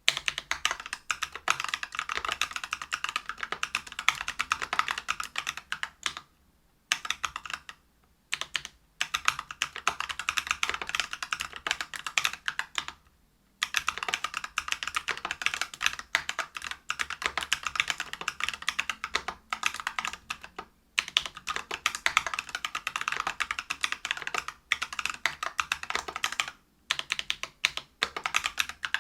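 Fast typing on a Whale 75 mechanical keyboard with lubed Neapolitan Ice Cream tactile switches (63.5 g), a brass plate and PBT keycaps. The runs of keystrokes are broken by a few brief pauses.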